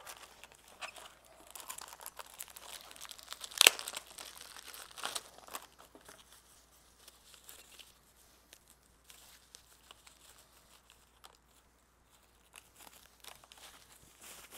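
Plastic wrapping crinkling and tearing as a small security camera is unwrapped by hand, with one sharp snap about three and a half seconds in. The crinkling thins out to soft, scattered rustles in the second half.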